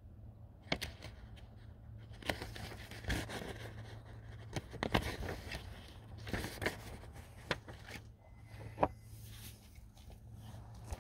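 Irregular rustling, scraping and sharp clicks, as of things being handled or moved about, over a steady low hum.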